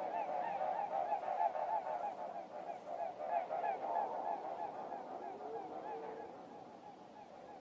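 A large flock of waterfowl honking, a dense chorus of many short overlapping calls every second, fading toward the end.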